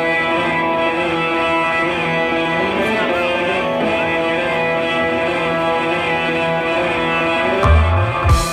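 Live band music with sustained, droning electric guitar chords held steady. Two heavy low thumps come near the end.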